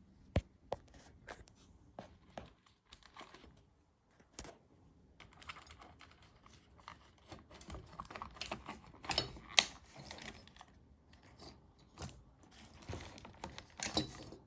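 Small hard objects being handled by hand: an irregular run of sharp clicks and taps with scraping and rustling between them, busier and louder in the second half.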